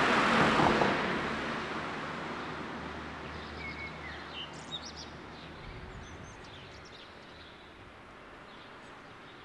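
Outdoor ambience: a loud rush of noise sets in suddenly and slowly fades away over several seconds, with a few short bird chirps in the middle.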